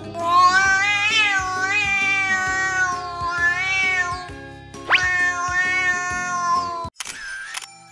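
Golden chinchilla cat yowling: one long drawn-out meow with a wavering, sliding pitch, then a second shorter call that starts with an upward sweep and cuts off suddenly, over background music.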